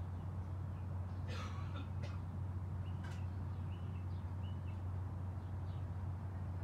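Small birds chirping now and then in short high calls over a steady low hum, with a brief scratchy sound about a second and a half in.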